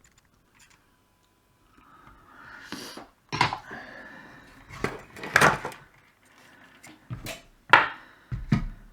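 Tools and a circuit board being handled on a workbench while a capacitor is soldered in: about six sharp knocks and clatters at uneven intervals over a faint steady hiss that starts about two seconds in.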